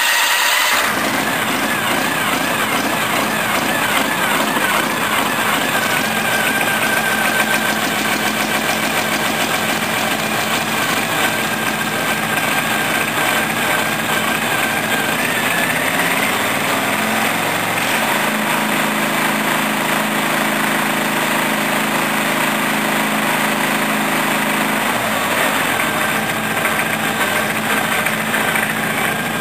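Briggs & Stratton 14 hp Vanguard V-twin engine on a ride-on mower running steadily just after starting. About halfway through, its note shifts for several seconds, then settles back.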